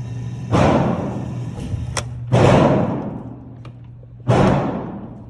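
Three gunshots about two seconds apart, each sharp and followed by a long fading echo.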